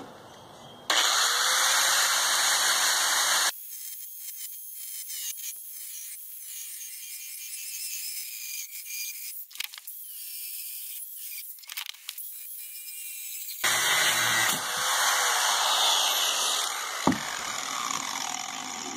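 Power tool cutting through a metal part, in two loud spells with a steady high whine. Between them is a quieter stretch of about ten seconds where only a thin, high-pitched sound is left.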